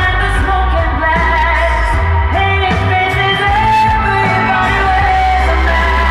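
Loud pop music with a singing voice over a heavy, steady bass.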